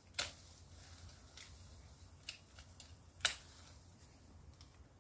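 Hand pruning shears snipping mandarin fruit stems during harvest: several sharp, separate clicks, the loudest about three seconds in.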